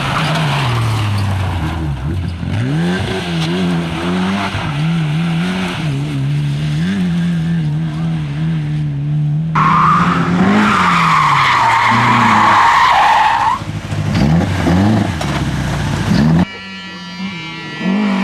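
Race car engines revving up and down through gear changes, heard across several abruptly cut clips. From about ten seconds in, a car's tyres squeal loudly for about three and a half seconds as it slides.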